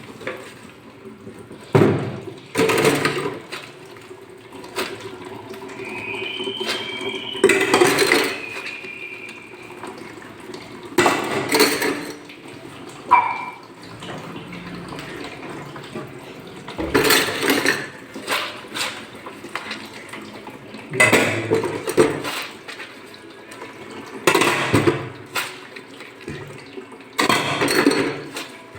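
Dishes being washed by hand at a sink: water from the tap runs steadily, with repeated louder gushes of about a second as plates are rinsed, and occasional clinks of dishes.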